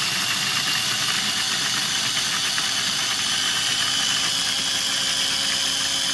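Small food processor motor running steadily with a high whine while its blade purees whole chipotle peppers in adobo sauce. The rough, chopping texture of the first few seconds evens out as the peppers break down.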